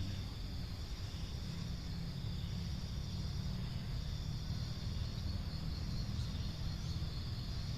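A steady high chirring of insects, with a constant low rumble underneath.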